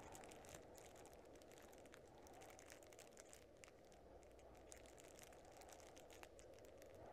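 Near silence: a faint low ambient hum with scattered faint crackles.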